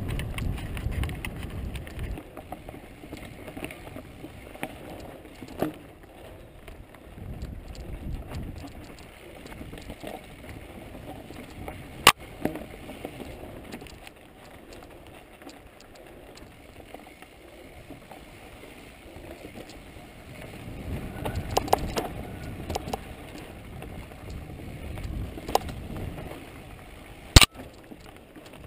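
Mountain bike ridden along a dirt trail, heard from a helmet-mounted camera. Tyres roll over dirt and the bike clicks and rattles, with swells of low rumble. There are two sharp knocks, one about halfway through and a louder one near the end.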